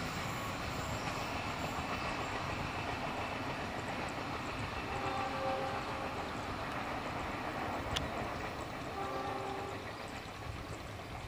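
Passenger train running away on the rails, a steady rumble of wheels on track, with two short locomotive horn sounds about five and nine seconds in.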